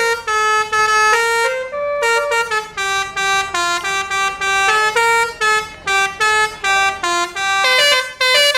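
Basuri V4 'telolet' multi-tone musical air horn on a bus playing a quick tune of short held notes, changing pitch several times a second, and cutting off suddenly at the end.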